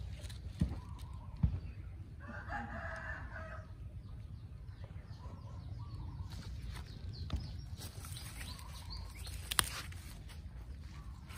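A rooster crows once, for about a second and a half, starting about two seconds in. There are a few sharp clicks and a low, steady rumble.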